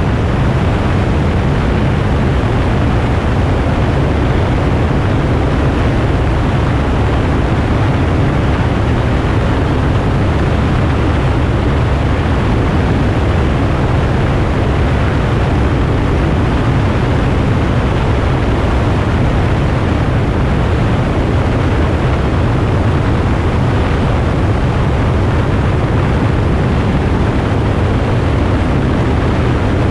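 Steady wind noise on an outside-mounted camera, mixed with the low drone of a light aircraft's engine and propeller in flight.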